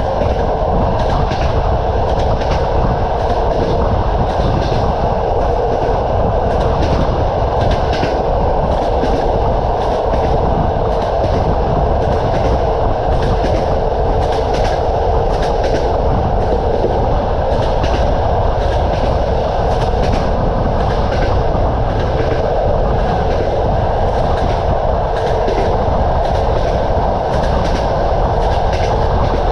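Moving train: a steady rumble of wheels on track, with wheels clacking over rail joints several times a second.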